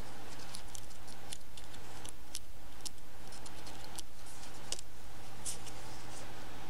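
Light metallic clicks at irregular intervals as the steel balls of a skateboard ball bearing are pushed with a hobby knife tip to one side of the race, over a steady low hum.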